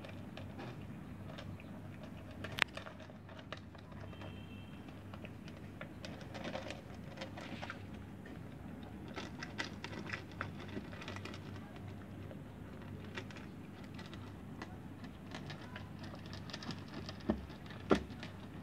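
A cat crunching dry kibble: an irregular run of small crisp crunches and clicks, with a few sharper clicks, one about two and a half seconds in and two near the end, over a low steady hum.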